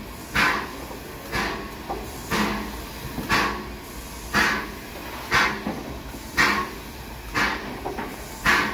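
Bulleid Battle of Britain class steam locomotive 34067 'Tangmere' standing at a platform, giving off short hissing puffs of steam at a steady beat of about one a second over a low background rumble.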